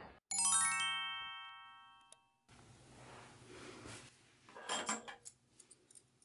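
A quick rising run of bright chime notes, a 'finished' jingle added in editing, rings out and fades over about two seconds. After it, faint room tone with a brief cluster of light clicks and knocks about four and a half seconds in.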